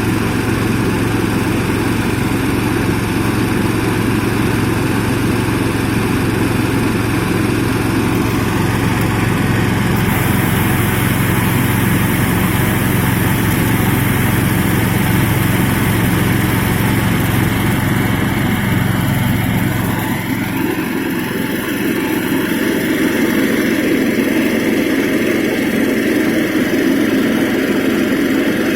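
Small engine-driven rice threshing machine running steadily. About twenty seconds in, its deepest hum drops away while the rest of the machine noise carries on.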